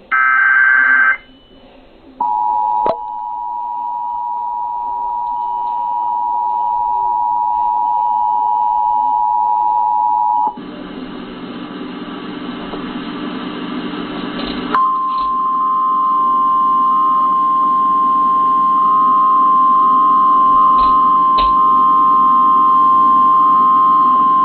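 Emergency Alert System tones. The last of the SAME data bursts ends about a second in. Then the two-tone EAS attention signal sounds steadily for about eight seconds, a stretch of hiss follows, and the single steady NOAA Weather Radio warning alarm tone sounds for about ten seconds over the hiss.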